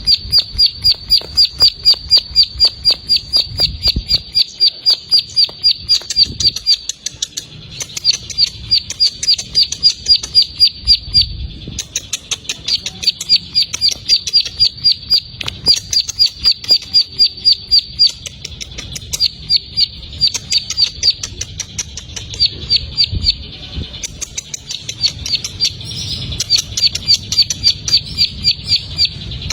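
Plain prinia (ciblek sawah) singing its 'ngebren' song: long runs of rapid, evenly repeated sharp, high notes, broken by brief pauses.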